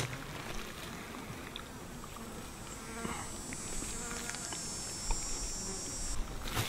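A high, thin insect buzz holds steady from about a second and a half in and cuts off suddenly near the end, over a soft rustle of low blueberry bushes being picked by hand.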